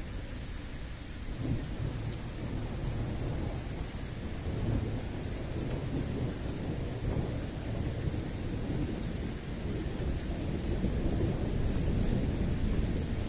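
Rain falling steadily and getting heavier during a thunderstorm, with a low rolling rumble of thunder beneath it.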